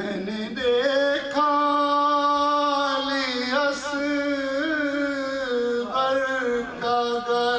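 A man's solo voice chanting a marsiya, the sung Shia elegy, in long held notes with slow ornamented bends in pitch and short breaths between phrases.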